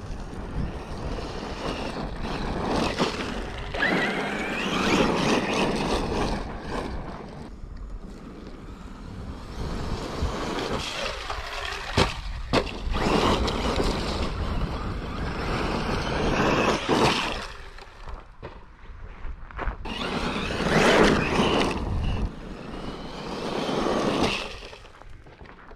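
Traxxas E-Revo 2.0 electric RC monster truck driving in bursts over loose sand and gravel: motor whine and tyres churning gravel, rising and falling as it accelerates and slows. There is a sharp knock about twelve seconds in as the truck tumbles, and a low wind rumble on the microphone.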